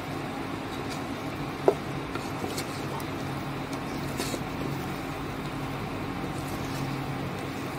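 Vegetables and masala frying in a pressure cooker pot while a wooden spatula stirs them: a steady sizzle over a low hum, with one sharp knock of the spatula on the pot about a second and a half in.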